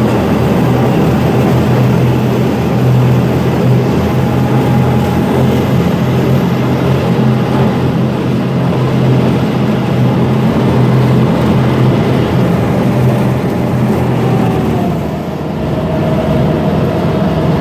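Amphibious duck boat's engine running steadily under way, with a low hum; about fifteen seconds in the engine note eases and drops slightly in pitch.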